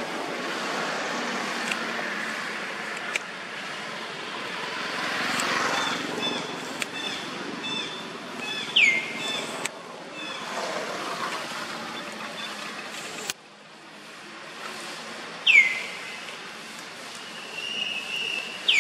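Outdoor ambience, a steady background hiss and hum, with birds calling over it: a short run of high pips, then three sharp, steeply falling chirps, each loud and brief.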